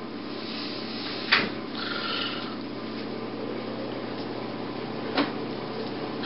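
Two short, sharp knocks, about a second and a half in and again near the end, over a steady hiss and low hum of room noise.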